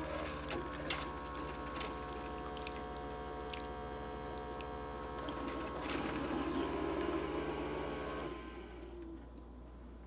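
Cuisinart single-serve coffee maker brewing: its pump hums steadily while coffee streams into the cup, with small ticks and drips. It gets louder briefly, then the pump stops about eight seconds in as the brew cycle ends.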